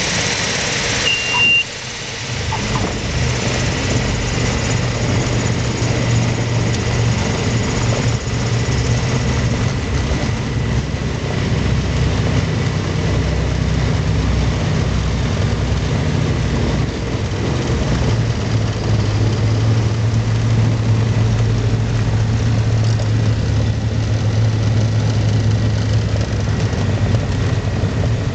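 Turbocharged Mooney's piston engine and propeller running at low power, a steady drone heard from inside the cockpit during the landing rollout. About a second in there is a brief high beep, and the rushing air noise then fades away.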